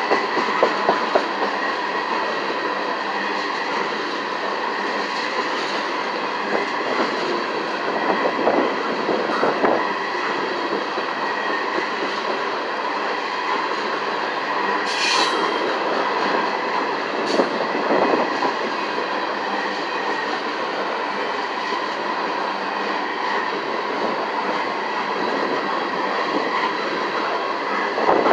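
Tank cars of a long freight oil train rolling steadily past close by: continuous rumble and rattle of wheels on the rails, with clacks over rail joints every so often and one brief high squeal about halfway through.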